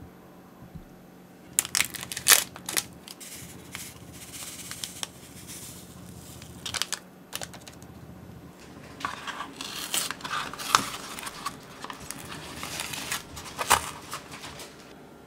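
Paper packaging being torn and crinkled: a paper packet of powdered gelatin is opened and sprinkled into a small glass bowl of water, then a paper milk carton is pried open, with a dense run of paperboard crinkling and crackling in the last few seconds.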